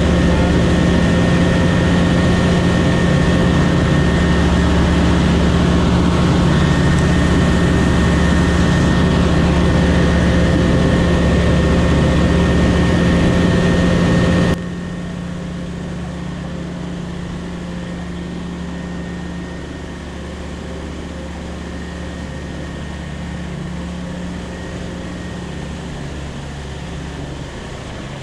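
Steady drone of a light aircraft's engine and propeller heard from the cockpit, holding one pitch. About halfway through it drops suddenly to a much quieter, duller hum.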